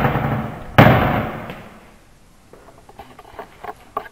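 Bench cupboard doors being shut with a bang. The first slam rings on at the start, and a second bang follows just under a second in, ringing for about a second. Faint small clicks and knocks come later.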